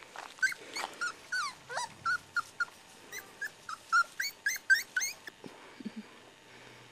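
Young Border Collie puppies squeaking and whimpering, a rapid string of short high-pitched cries, about four a second, some sliding up or down in pitch. The cries stop about five seconds in.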